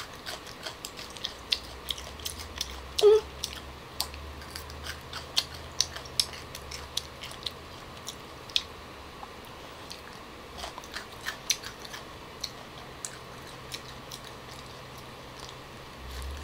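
Close-miked crunching and chewing of crisp young tamarind pods, eaten whole with their peel: a steady run of sharp crackly clicks. A brief louder sound comes about three seconds in.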